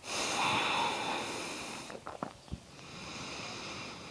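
A woman's deep breathing close to the microphone: one long, loud breath, a few small clicks about two seconds in, then a second, softer breath.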